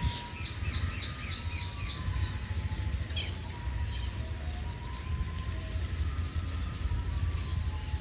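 Spice finches (scaly-breasted munias) calling: a quick run of short, high, downward-sliding chirps in the first two seconds, then scattered single chirps, over a steady low rumble.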